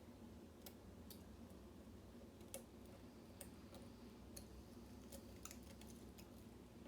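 Faint, scattered metallic clicks of lock picks working the pins inside a lock cylinder, over a low steady hum.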